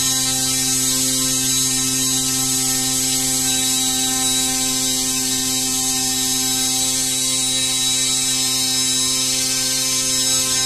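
Home-made 3D-printed brushless motor running at a steady speed: an even electric motor hum with a hiss above it, unchanging in pitch.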